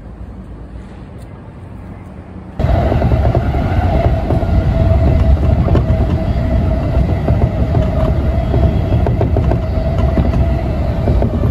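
A train running, heard from inside the carriage: a loud, steady low rumble of wheels on rails with a constant whining tone, starting abruptly about two and a half seconds in. Before it comes a quieter low outdoor rumble.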